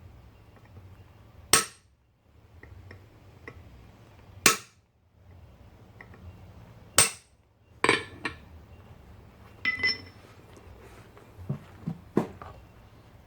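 Hammer blows on metal at the anvil, about six sharp single strikes spaced a second or more apart, each with a brief metallic ring, likely shaping a copper soldering-iron head.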